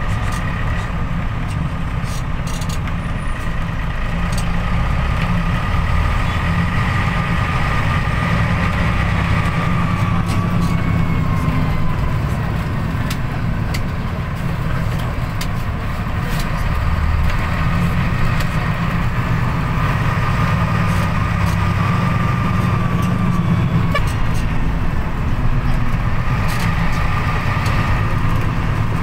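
A bus engine and road noise heard from inside the moving bus: a steady low rumble with a faint whine that slides down in pitch now and then.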